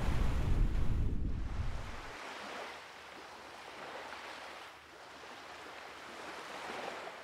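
Ocean surf: a soft wash of waves that swells and ebbs a few times. It follows a deep rumble that fades away about two seconds in.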